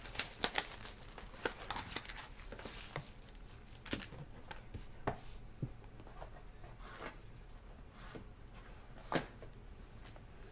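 Shrink-wrap plastic being torn and crinkled off a trading-card box, a quick run of sharp crackles in the first second or two. Then scattered taps and clicks from handling the cardboard boxes, the loudest about nine seconds in.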